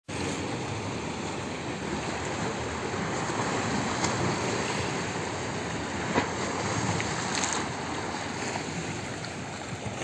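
Steady wash of sea water and small waves, with a few faint clicks about four, six and seven seconds in.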